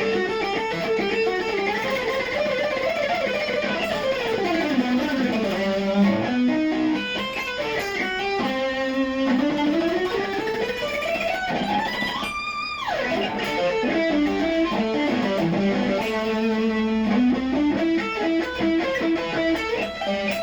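Cort X700 Duality II electric guitar played straight into an amplifier with no effect pedal: fast lead runs of notes sweeping down and back up in pitch. About twelve seconds in, one long climbing run breaks off suddenly.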